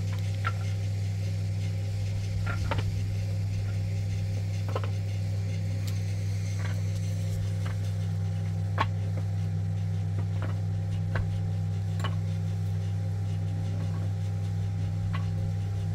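Steady low engine drone with scattered light clicks and taps.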